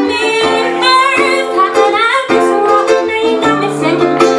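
A woman singing into a microphone with vibrato on held notes, accompanied by plucked classical guitar.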